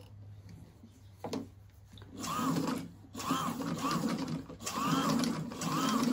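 A 51-year-old sewing machine stitching a torn dress, run in three short bursts. Its whine rises and falls in pitch within each burst.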